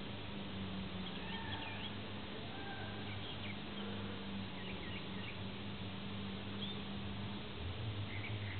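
Honeybees buzzing over an opened hive and the bee-covered frame lifted from it: a steady low hum.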